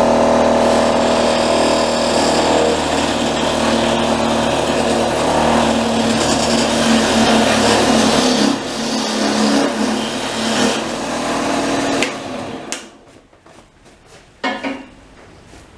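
Wood lathe running with a turning tool cutting into a spinning bark-covered log, a steady motor hum under a rough scraping noise; it stops about twelve seconds in.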